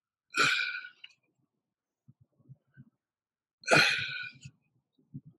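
A man breathing out hard twice, about three seconds apart, a short huffing exhale with each alternating side lunge.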